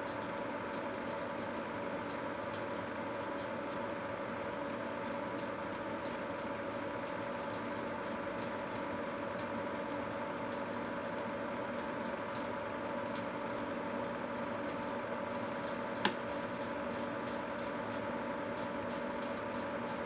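Microwave oven running with a steady hum while the items inside burn with an open flame, crackling and ticking throughout, with one sharper, louder crack near the end.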